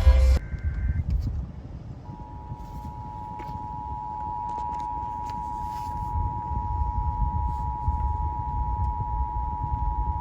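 Emergency Alert System broadcast: a brief digital header burst dies away at the start. About two seconds in, the two-tone attention signal begins, two steady pitched tones sounding together and held without change, announcing the next alert. A low rumble of background noise lies under it.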